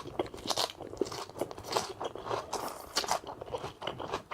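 A person chewing a mouthful of salad with crisp, irregular crunches.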